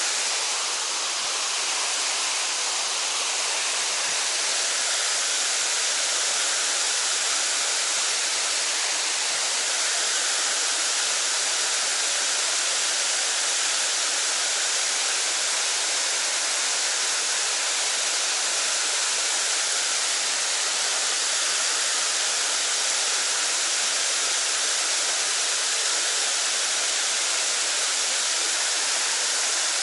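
Mountain stream water rushing steadily, an even hiss of falling and flowing water.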